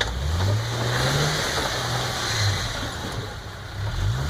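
Off-road Jeep's engine revving under load, climbing in pitch through the first second or so, then easing and varying before rising again near the end, with a hiss over it.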